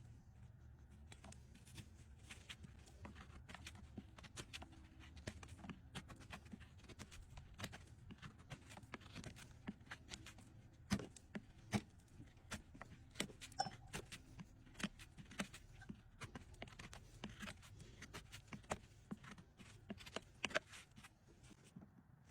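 Hoof-trimming work on a draft horse's overgrown hoof: irregular sharp clicks and short scrapes of the trimming tools against hard hoof horn, growing more frequent and louder about halfway through, over a low steady hum.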